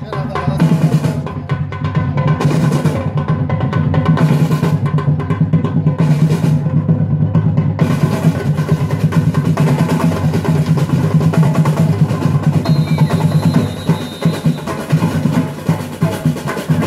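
Live samba-style drum ensemble, large metal-shelled surdo bass drums and harnessed snare drums, playing a steady, driving groove. A brighter, denser layer of drumming comes in about eight seconds in.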